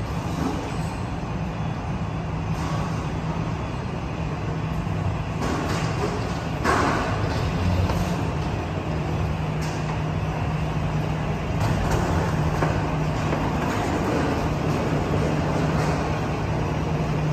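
Steady low rumble and hum of an Airbus A320 airliner on the ground, with one knock about seven seconds in.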